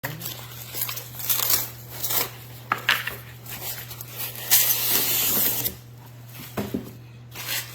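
Rustling and scraping handling noises, likely packaging being moved about, with a longer rustle about four and a half seconds in, over a steady low hum.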